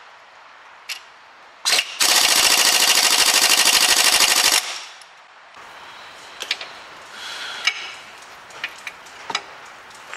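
Pneumatic impact wrench (air gun) hammering at a shock-to-hub bolt in a rapid, steady rattle for about two and a half seconds, after a short blip. Light metallic clicks follow.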